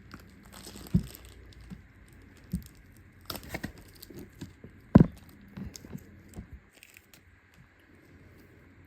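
Handling noises from working a slime kit by hand: scattered soft knocks and crackles as the slime mixture is pressed and spread, with the loudest knock about five seconds in.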